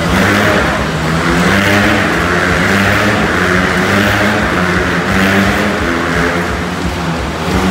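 Motorcycle engines running steadily as the bikes circle inside a steel-mesh globe of death.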